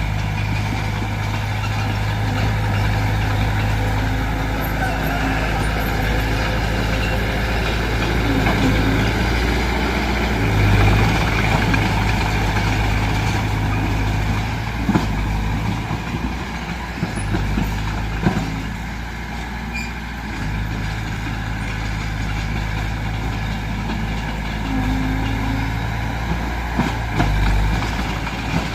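Heavy diesel earthmoving machinery running steadily under load, with a few sharp metallic knocks in the second half.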